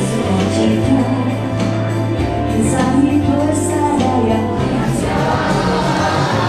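Singing over instrumental backing music, with held bass notes that step from one to the next.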